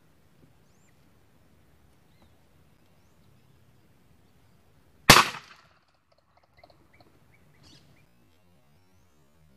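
A single rifle shot about halfway through, sharp and loud with a short ringing tail, fired at quail feeding on the ground. Faint bird chirps come before and after it.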